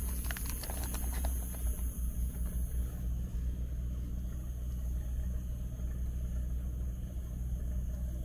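An engine running steadily, a low even hum. A few light plastic rustles and clicks come in the first second or so.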